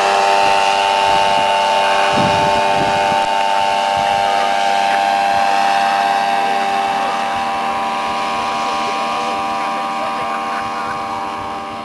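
Paramotor engine and propeller running at a steady high, even drone as the powered paraglider passes overhead. The sound fades gradually over the second half as it flies away.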